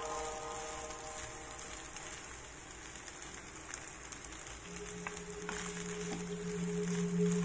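Faint sizzling and crackling of rice frying in a nonstick pan as it is stirred with a wooden spatula, with a few light clicks. Background music fades out at the start, and a new track of steady sustained tones comes in about two-thirds of the way through and grows louder.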